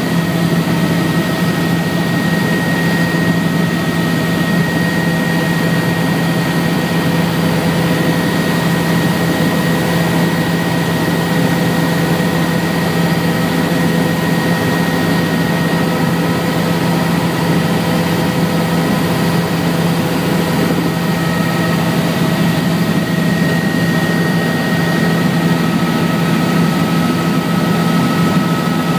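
Helicopter in cruise flight heard from inside the cabin: a loud, steady drone of engine and rotor with a constant high whine over it.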